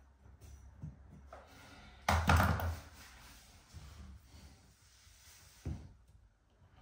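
Copper pipes and a pipe clip knocking as they are handled, a few light taps with one louder clattering knock about two seconds in.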